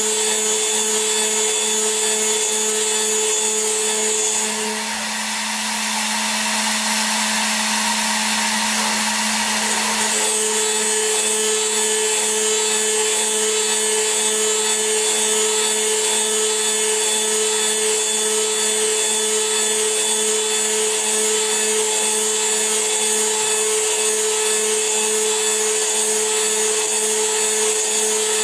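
CNC milling machine's high-speed spindle running with a 3 mm end mill cutting aluminium dry: a steady, loud whine. A higher tone in the whine drops out about four seconds in and returns around ten seconds in.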